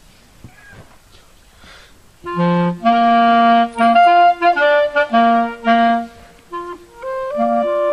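A woodwind instrument, clarinet-like in tone, playing a lively tune of short, quick notes that starts about two seconds in, pauses briefly, then carries on with longer held notes.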